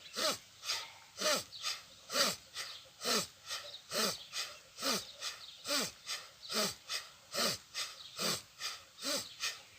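Bhastrika (bellows breath) pranayama: forceful, evenly paced breaths in and out through the nose. A strong stroke comes about once a second, with a lighter one between.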